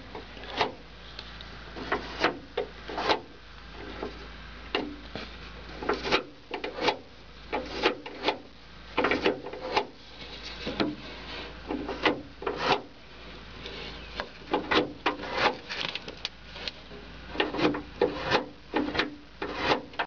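Isuzu pickup (Holden Rodeo) interior door lock lever and its linkage being worked by hand: irregular plastic-and-metal clicks, knocks and rubbing, dozens of them with short gaps between.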